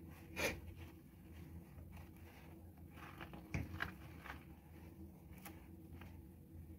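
Wire being worked around a juniper bonsai's trunk and pot to tie it in: faint scraping and rustling, with a sharp click about half a second in and two more close together around three and a half seconds in.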